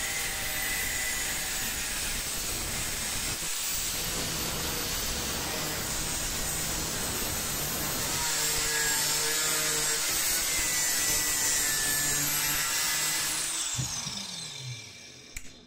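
Angle grinder's abrasive cut-off disc cutting through hardened HSS saw-blade steel, a steady high grinding. Near the end the grinder is lifted away and its pitch falls as it winds down.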